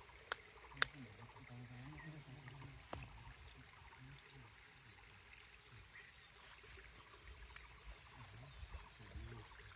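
Faint trickling water, with a few sharp clicks in the first second and a faint, low voice murmuring in the distance now and then.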